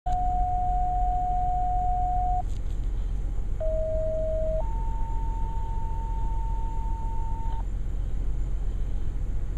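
Radio paging tones. One steady tone lasts about two and a half seconds, then after a pause a two-tone page follows: a short lower tone, then a longer higher one. The pattern is typical of a fire-dispatch tone-out used to set off a fire siren.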